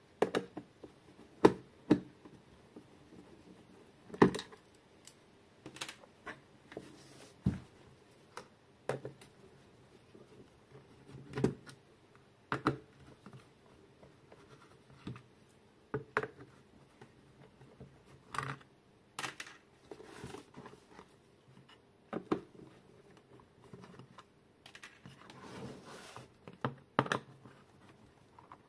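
A subwoofer cabinet being taken apart by hand: scattered sharp clicks and knocks of a screwdriver, loose screws and the cabinet being handled and turned over, one every second or two. A brief scraping rustle near the end as the back panel is worked loose.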